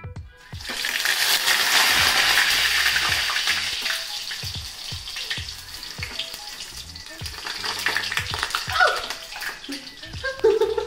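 Frozen vegetable spring rolls frying in hot oil: a loud sizzle with crackling surges up about half a second in, then eases to a steadier, lower sizzle.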